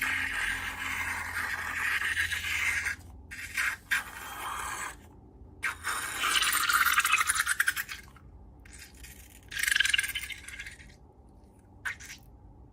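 Slime being squished and stretched by hand: a series of sticky scraping, crackling strokes with short pauses between them, the longest and most crackly one about halfway through.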